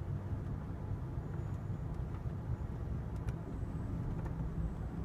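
Steady low rumble of an Amtrak California Zephyr passenger car rolling along the rails, heard from inside the car, with a few faint clicks.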